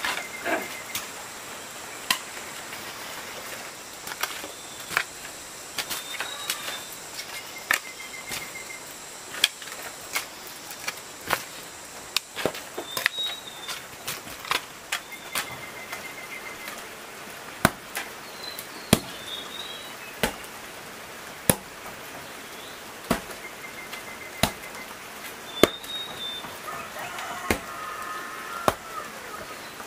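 Repeated sharp strikes of a hand tool, about one a second at an uneven pace.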